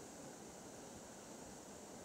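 Waterfall cascading over rocks: a faint, steady rush of falling water.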